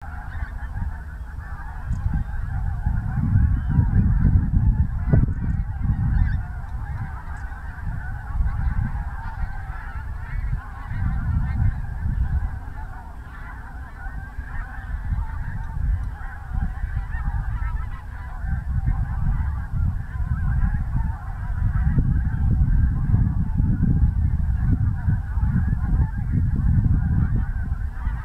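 Many birds calling at once in a dense, unbroken jumble, over a low rumble that swells and fades every few seconds.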